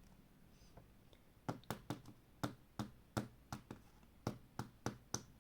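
A quick run of sharp clicks, about three a second, starting about a second and a half in, from trading cards being handled and fitted into place.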